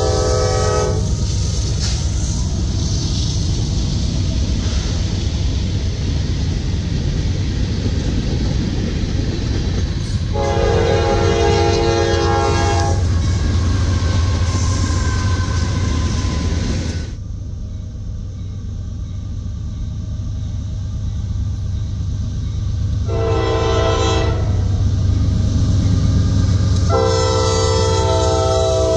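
Freight diesel locomotives passing close by, with a steady engine rumble and wheel noise. Their air horns sound several blasts: one ending just as it begins, a long one of about two and a half seconds around ten seconds in, then a shorter blast and a long blast near the end.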